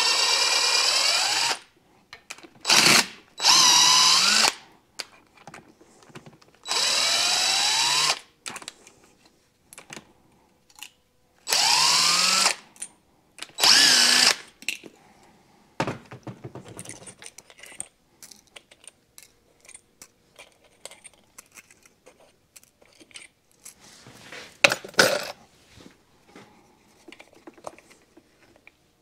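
Handheld power drill-driver run in short bursts of one to two seconds, about seven in all, each spinning up with a rising whine. Light clicks of handling come between the bursts.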